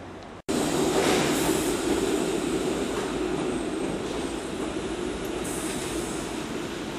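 Red-and-cream electric railcar running past on street track: a steady rumble of wheels and motor that starts abruptly, is loudest about a second in, then slowly fades as it moves away.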